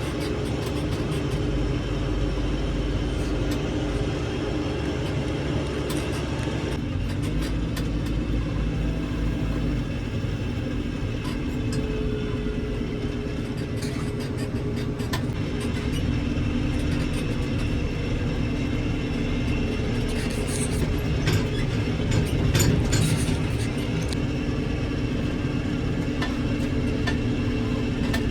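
Heavy diesel engine running steadily, its note shifting about seven seconds in, with a few sharp clanks around twenty seconds in.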